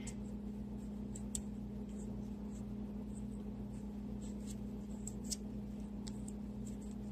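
Paring knife shaving the skin off the side of a raw carrot: faint, scattered scraping ticks as the blade cuts through, over a steady low hum.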